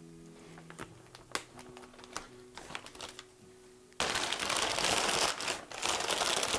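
Thin plastic bag crinkling loudly as it is pulled off a telescope mount head. The crinkling starts abruptly about four seconds in, after a few light rustles and clicks over soft background music.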